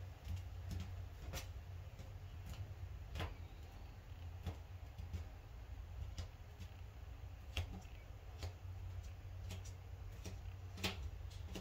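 Faint, irregular light clicks and taps from gloved fingers working soft filler around a bathtub drain opening, over a low steady hum.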